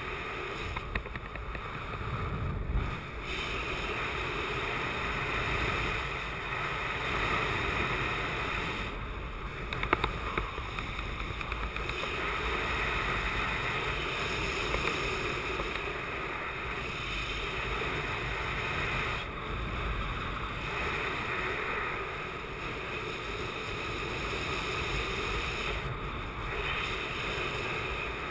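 Airflow buffeting the camera microphone in flight under a speed wing: a steady, fluctuating wind rush, with a couple of brief sharper knocks, the loudest about ten seconds in.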